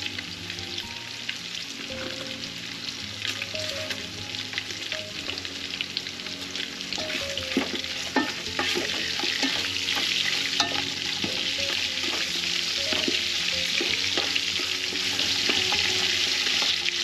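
Pork ribs searing in hot oil in a metal pot, sizzling steadily and louder from about halfway through, with clicks and scrapes of a utensil stirring the meat.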